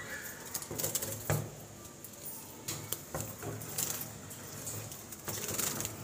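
Wire cages rattling and clinking in irregular bursts as a hand works the door of a small wire carrier cage inside a larger welded-wire cage.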